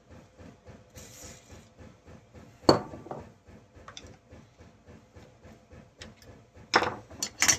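Metal hand tool clicking and clinking against a chainsaw's retaining clip as it is pried at: one sharp click about three seconds in, then a quick cluster of clicks near the end.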